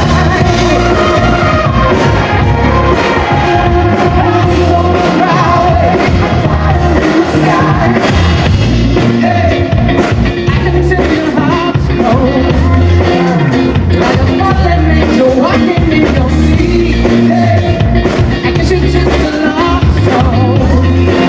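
Live pop-rock band playing loudly, with a pulsing drum and bass beat and a voice singing over it.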